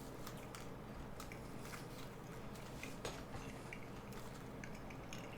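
Faint chewing with small scattered crunches: a person eating a wafer ice-cream-cone snack with a marshmallow filling.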